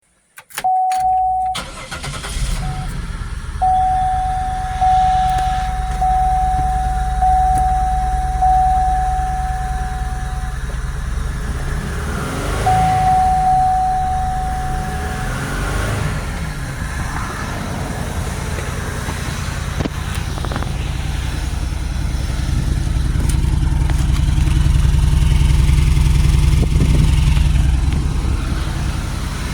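2004 Buick LeSabre's 3.8-litre V6 starting and running with a misfire, its speed rising and falling around the middle and running louder near the end. A dashboard warning chime beeps about once a second over the first half.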